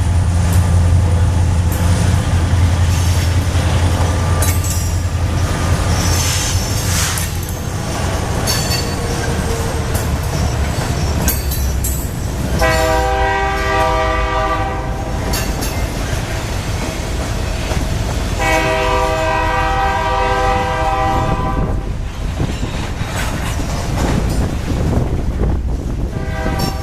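Freight train of diesel locomotives passing, with a heavy engine rumble that eases after the first several seconds and steady wheel clatter on the rails. Midway there are two long blasts on a locomotive's multi-note air horn, each about two and a half seconds.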